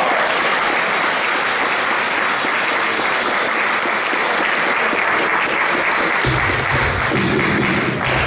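Crowd applauding after a table tennis point is won. About six seconds in, a low steady pitched drone joins under the applause.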